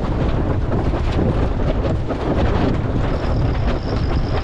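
Wind buffeting the microphone on a sailboat under way. A thin, steady high tone comes in about three seconds in.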